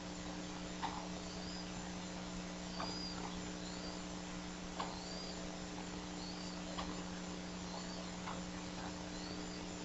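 Steady electrical hum, with faint high bird chirps about once a second and sharper short peeps every two seconds or so.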